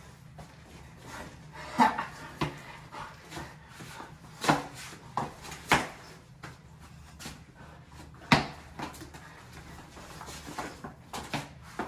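Two people wrestling on a tile floor: scuffling and grunting, broken by irregular sharp knocks and thuds, the loudest about eight seconds in.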